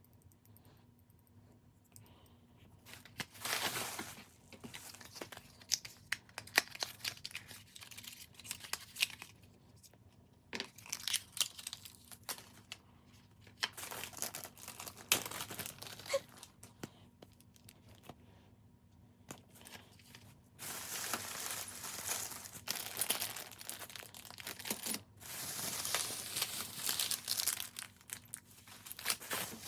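Irregular crinkling, rustling and tearing handling noises with scattered sharp clicks. The noise grows denser and more continuous in the last third.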